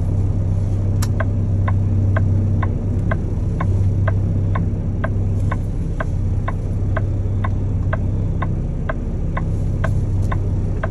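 Semi truck's diesel engine running low and steady, heard from inside the cab, with the dashboard flasher clicking evenly about twice a second, starting with a sharper click about a second in.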